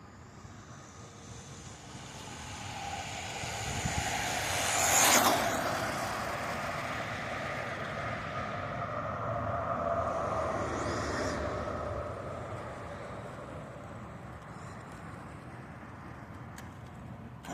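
Electric RC truck making a speed run: its motor whine and tyre noise build as it approaches and peak sharply as it passes about five seconds in. The whine carries on, swells again around ten seconds, then fades away as the truck slows.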